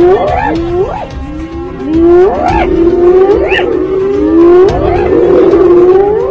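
Spotted hyena whooping: a run of low, hooting calls, each ending in an upward slide, repeating about once a second.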